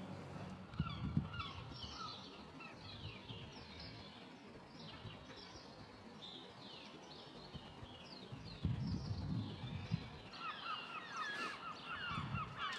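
Many birds chirping and calling in short, quick notes, growing busier near the end, with a few low thuds around a second in and again near the nine-second mark.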